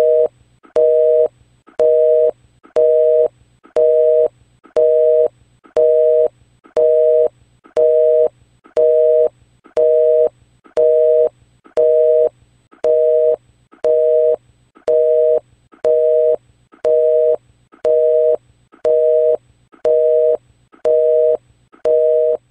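Telephone busy signal: a two-tone beep repeating steadily about once a second, half a second on and half a second off, as the line goes dead after the call ends.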